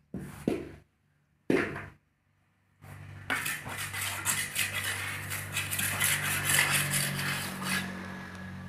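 A hand trowel working wet concrete in a metal tile mould: two short knocks in the first two seconds, then from about three seconds in a rapid run of scrapes and clinks of metal on concrete and on the mould's edge, over a steady low hum.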